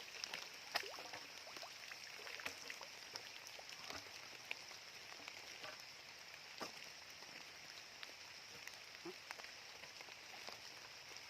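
Light rain falling, a steady soft hiss with scattered drops ticking.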